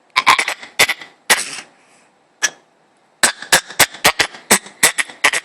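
A baby making clicking and smacking noises with his mouth: a few sharp clicks and a breathy huff, then from about three seconds in a quick, even run of clicks, about four a second.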